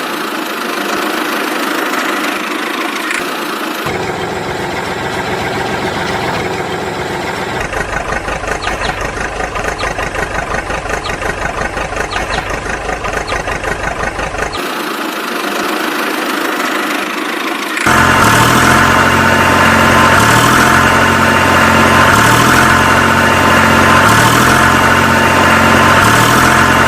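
Tractor engine running and idling, in several cut segments. From about 8 to 15 s it pulses rapidly and evenly, and about 18 s in it jumps louder with a repeating low pattern.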